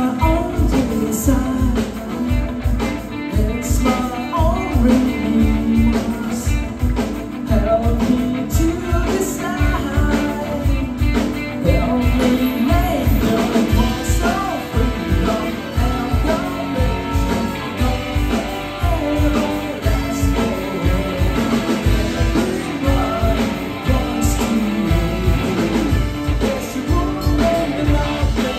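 Four-piece band playing live rock music: electric guitar, electric bass, keyboard and drum kit, with a steady beat throughout.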